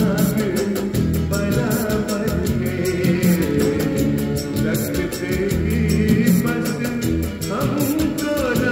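Hindi film song playing from a vinyl LP on a turntable: singing over a steady beat and instrumental backing.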